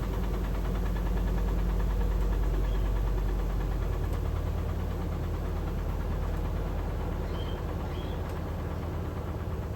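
Electrolux LM08A top-loading washing machine running with a load of towels: a steady low motor hum with a fine, even flutter. It swells slightly about two seconds in and eases toward the end, where a couple of faint high chirps come through.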